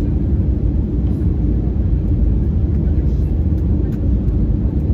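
Steady low rumble inside a jet airliner's cabin as it descends towards landing.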